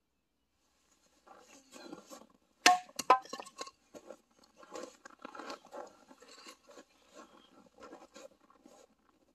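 A run of short crunches, about three a second, with two sharp snaps close together a little after they begin.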